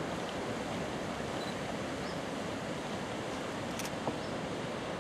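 Steady rushing noise with no clear pitch, with one short click a little before four seconds in.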